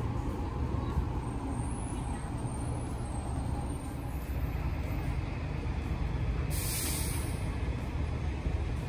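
Wind rumbling on a phone microphone outdoors, with a short sharp hiss about two-thirds of the way through.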